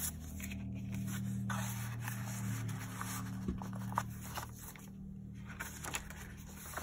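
Paper rustling and sliding as a handmade junk journal is handled: tags shifted in a page pocket, then a stiff ledger-paper page turned near the end, with a few light taps. A steady low hum lies underneath and fades about two-thirds of the way through.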